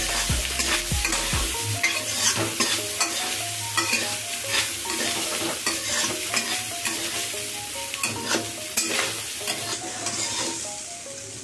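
A flat metal spatula scrapes and knocks against a metal kadhai as fried rice is stirred and tossed, over a steady frying sizzle. The stirring gets quieter near the end.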